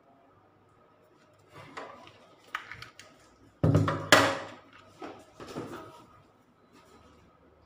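Handling noise from a small metal-cased inverter welder being turned around and set down on a table, with two loud knocks close together about halfway through. After them come softer rustles and knocks as the rubber power cable is handled.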